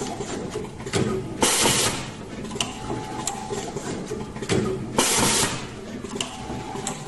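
Automatic wire stripping, twisting and soldering machine running through its cycles, with constant mechanical running noise. About every three and a half seconds comes a loud half-second hiss, with clicks and a brief whine in between.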